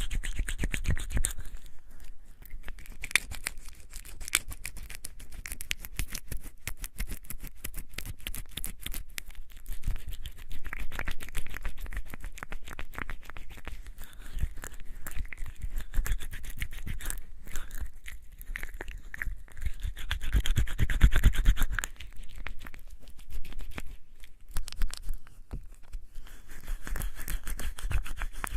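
Wet hands rubbing and lathering together with bar soap: a dense, continuous crackle of small wet squelches and clicks, swelling loudest about twenty seconds in.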